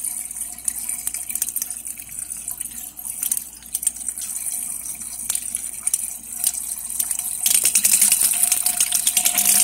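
Thin jet of coolant squirting and spattering into a BMW's expansion tank as the electric water pump pushes it round to bleed the system, crackling with small spits of air. About seven and a half seconds in it turns louder and gushier as a rush of trapped air bubbles is forced out.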